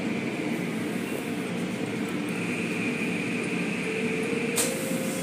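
Automatic car wash machinery running steadily with water spraying against the car, heard from inside the car's cabin; a short hiss of spray hits about four and a half seconds in.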